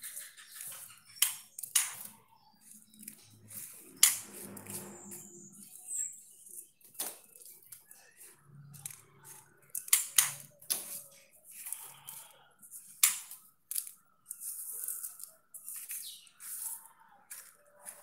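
Juvenile white-rumped shama moving about its wooden-barred cage: irregular sharp taps and clicks of its feet and beak on the perches, bars and feed cups, with short wing flutters.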